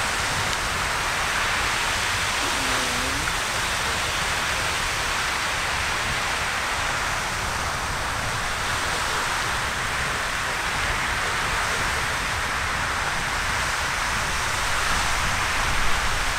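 Riverside Geyser erupting: a steady rushing hiss of its water column jetting out and the spray raining down onto the river.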